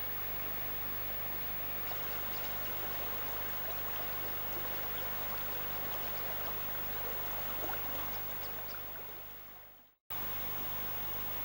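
A shallow river running over stones: a steady rushing with faint splashes that fades away and cuts out about ten seconds in, leaving only hiss. A steady low hum and hiss from the old videotape recording runs beneath.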